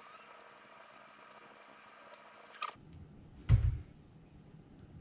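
Fine metallic ticking and a faint squeak as an Allen wrench turns a screw on a Browning BAR Mark 3 rifle, stopping after about two and a half seconds, then a single dull thump about three and a half seconds in.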